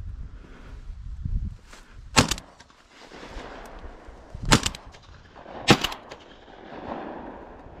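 Three shotgun shots, the second about two and a half seconds after the first and the third about a second after that, each trailing off in a short echo. A low rumble of wind on the microphone comes before the first shot.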